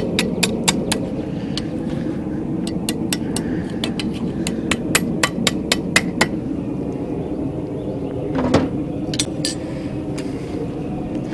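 Blacksmith's hammer striking hot steel on an anvil, in runs of quick blows about three a second, with a second run about five seconds in and scattered single blows between, over a steady low hum.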